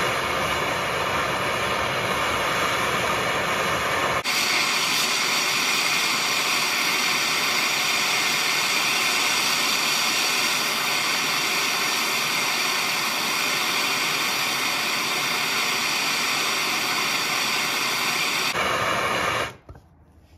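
A handheld gas torch's flame burns with a steady hiss, heating a rusted, seized bolt to loosen it until it is almost cherry red. About four seconds in, the low rumble drops away and the hiss turns brighter. The flame shuts off suddenly near the end.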